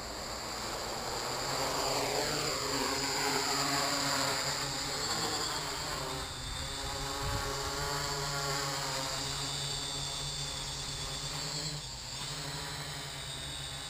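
Quadcopter's four KD2213 brushless motors and propellers running up and holding the machine aloft: a buzzing whine that shifts in pitch as the throttle changes. The roll/pitch P gain is set to 11.5, and the flight is steady with no vibration.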